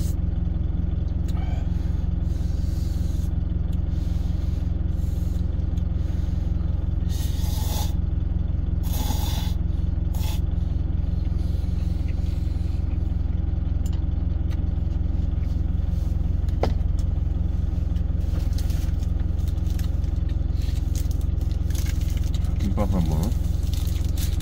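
Steady low drone of the truck's idling engine heard inside the cab, with a few short noisy bursts of instant ramyeon noodles being slurped about a third of the way in. Plastic wrapper crinkles and tears right at the end.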